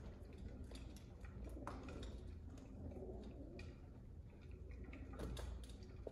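Feral pigeons pecking seed from bowls: faint, irregular clicks and taps of beaks striking the bowls and seed.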